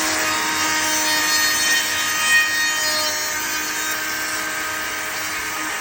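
Electric wood router running at full speed with a steady whine, its bit cutting into wood with a rough hiss. The cut is loudest in the first half and eases off a little after about three seconds.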